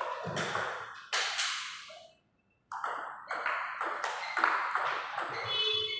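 Table tennis rally: the celluloid ball clicks sharply off the bats and the table, a few times a second. A brief high squeak near the end.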